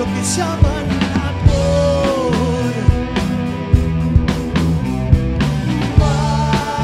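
Rock band playing an instrumental passage live, taken straight from the mixing desk. Drum kit keeps a steady beat under bass, and a lead guitar bends notes, with a long held note near the end.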